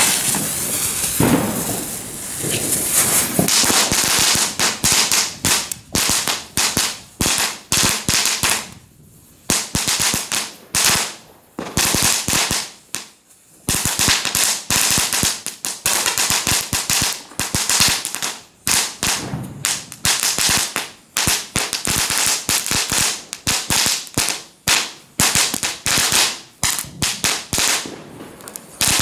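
GBV-Weco Knetterlint, a 70 cm crackling-ribbon firework, burning along its length and crackling. It opens with a dense, hissing run of crackles for about four seconds. Then come clusters of rapid sharp pops with brief pauses between them, a hefty crackle.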